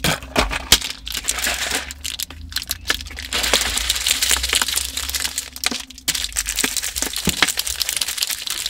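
A plastic Gatorade bottle being shaken hard by hand, the liquid sloshing and the plastic crackling in rapid, dense clatters that grow busier about three seconds in.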